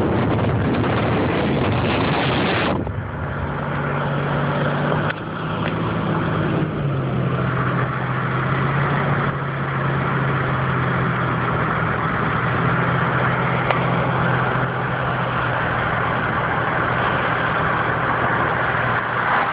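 Car driving on a wet road, heard from inside the cabin: a loud rushing noise cuts off abruptly about three seconds in, leaving the steady hum of the engine and tyre noise from the road.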